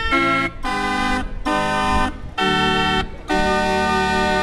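Pipe barrel organ playing a tune in a run of short, separated chords, then one long held chord near the end.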